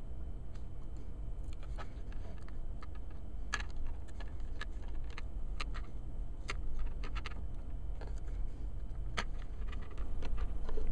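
Scattered small clicks and taps of fingers handling an iPhone 3G's frame while pressing new adhesive onto it, irregularly spaced, over a low steady hum.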